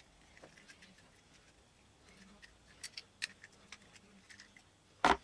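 Light scattered clicks and ticks of metal parts as a skateboard wheel is worked off its truck axle, with a louder sharp clack about five seconds in.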